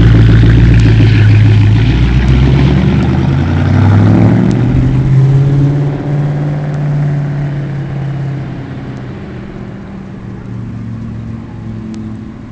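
1999 Ford Mustang GT's 4.6-litre V8 engine and exhaust running just after its recalled intake manifold was replaced. The revs climb to a peak about four seconds in, then fall back, and the sound grows quieter toward the end.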